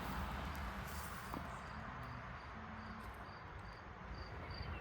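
A cricket chirping in a steady rhythm of about three short, high chirps a second, starting a couple of seconds in, over a low background rumble.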